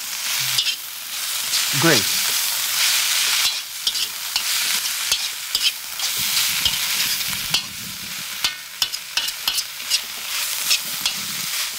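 Food sizzling in a hot pan, a steady frying hiss, with a run of light clicks and taps over the last few seconds.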